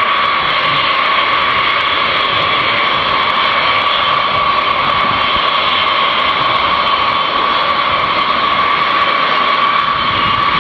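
B-52H Stratofortress bombers taxiing in line, their Pratt & Whitney TF33 turbofan engines running at steady taxi power with a constant, unbroken high whine over the jet noise.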